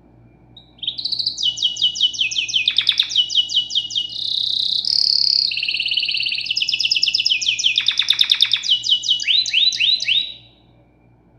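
A songbird singing one long, fast song of rapidly repeated trilled phrases that change every second or so. It starts about a second in and stops near the end.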